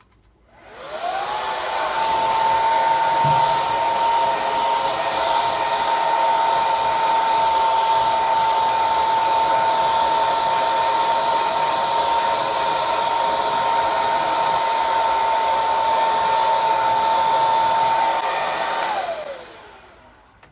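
Unix Super D+ hair dryer switched on, its motor whine rising quickly to a steady high tone over the rush of air, running evenly, then switched off near the end, the whine falling in pitch as the motor spins down.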